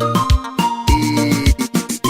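Upbeat music with a steady kick-drum beat, a sustained synth-like bass and a melody line.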